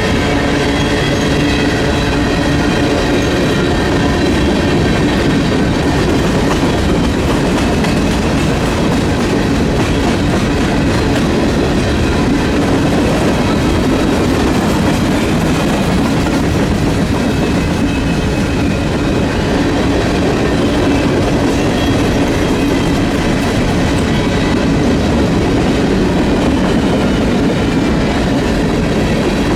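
Union Pacific freight train rolling past on the rails, its cars making a loud, steady rumble that doesn't let up.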